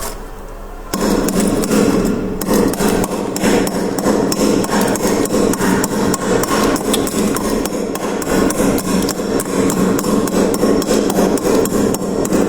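Rapid, repeated knocking strokes of a scraper chipping at freezer frost, beginning about a second in and going on steadily at several strokes a second.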